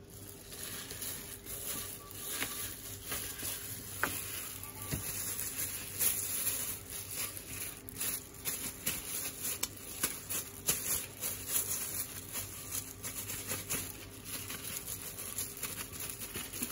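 Raw minced beef being slapped and patted between hands in thin plastic disposable gloves to shape hamburger patties: a run of irregular soft, wet slaps mixed with rustling of the plastic gloves.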